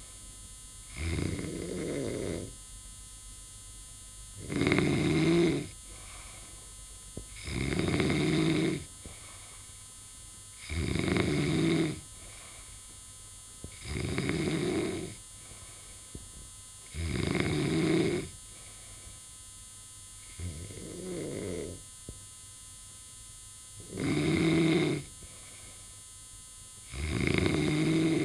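Snoring in a steady rhythm, one long snore about every three seconds, nine in all; the one about two-thirds of the way through is weaker. A faint steady hum fills the gaps between snores.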